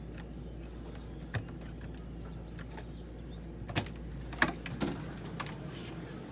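Key being worked in a newly installed camper door lock: about half a dozen separate sharp metallic clicks and knocks, spaced unevenly, over a low steady hum.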